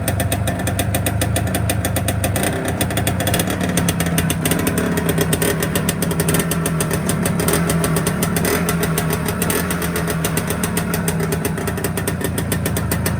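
An IZh Planeta Sport's single-cylinder two-stroke engine running steadily at idle, with a rapid, even firing beat, after a minor repair.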